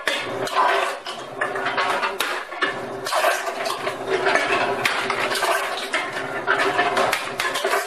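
Automated countertop can crusher running: a steady motor hum under a dense run of clattering clicks and crunches as aluminium cans dropped down its feed tube are flattened side to side.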